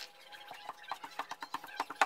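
Drywall knife scraping and tapping joint compound on drywall, sped up into a rapid run of small clicks and scrapes that grows busier near the end.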